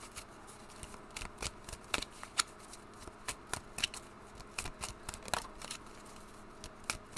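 A deck of tarot cards being shuffled by hand: a run of irregular, sharp little snaps and clicks of card edges.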